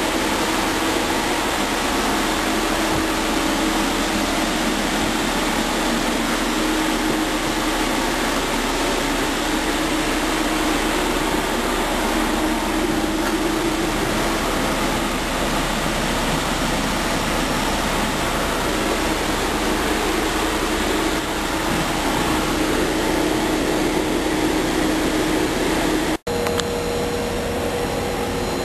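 Steady mechanical hum and hiss of background noise. It cuts out for an instant near the end and comes back with a steady higher hum.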